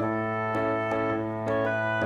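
Background music: a gentle keyboard piece with sustained chords under a simple melody of struck notes.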